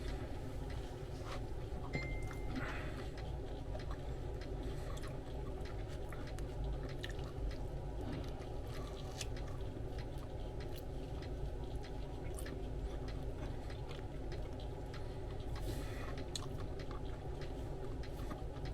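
A person chewing and biting a soft sub sandwich, with small wet mouth clicks, over a steady low background hum.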